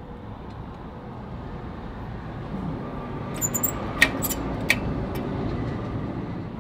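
A low rumble, like a vehicle going by, that swells through the middle. Over it come a few small sharp clicks, then two louder sharp clicks about four seconds in and just before five seconds.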